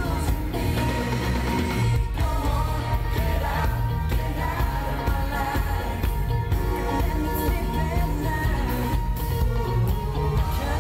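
Live pop music heard from within the audience: a male vocal harmony group singing over a band with a strong bass.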